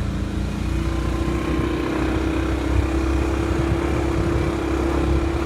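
Motorbike engine running steadily under way, one even engine note over a continuous rushing noise of riding.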